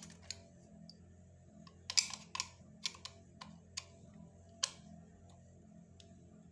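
Irregular sharp clicks and taps, about eight in all, the loudest about two seconds in, from a screwdriver and the plastic parts of a wall socket being handled and fitted.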